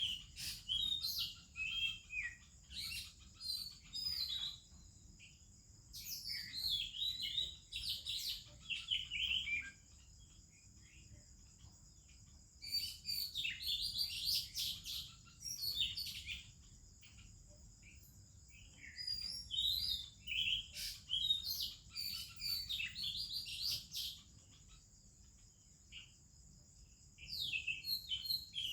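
Oriental magpie-robin singing: bursts of rich, varied whistles and warbles, each a few seconds long, with short pauses between.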